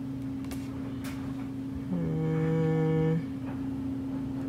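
A person humming one held note for just over a second, about two seconds in, over a steady low hum. Two faint clicks come before it.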